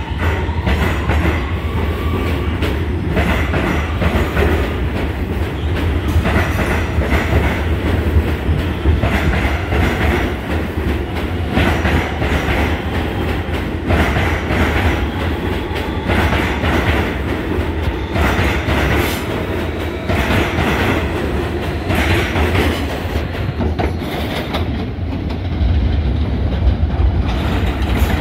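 New York City subway train running along the platform: a steady low rumble, with wheels clacking over rail joints again and again.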